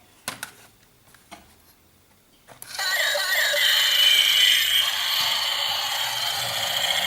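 A few light clicks and handling rubs, then about two and a half seconds in a toy tank's electronic sound effects start suddenly and run on loud and steady from its small built-in speaker, thin and tinny with no bass.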